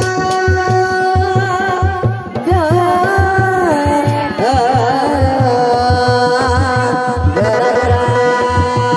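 Reak ensemble music: dog-dog drums beating a fast, steady rhythm under a held, wavering melody that slides and steps between long notes.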